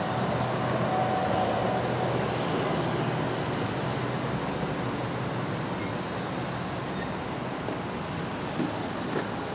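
Steady noise of idling emergency-vehicle engines, slowly fading, with a faint low hum in the first couple of seconds.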